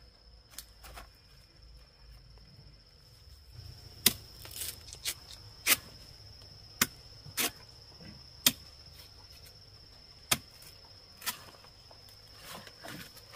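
Curved machete chopping into a green banana stalk to cut off hands of bananas: a series of about nine sharp chops at uneven intervals, starting about four seconds in. A steady high insect buzz runs underneath.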